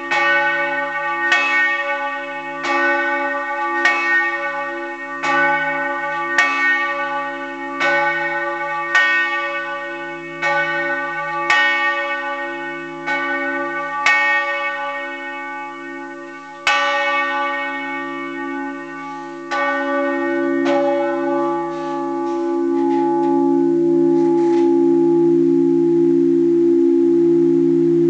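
Large bronze swinging church bell tuned to C♯4 (cis1), cast by the Fischer brothers of Trnava in 1930, tolling for a funeral: its clapper strikes about every 1.3 seconds, each stroke ringing on under the next. The strokes thin out and stop about twenty seconds in, leaving a steady low ringing hum.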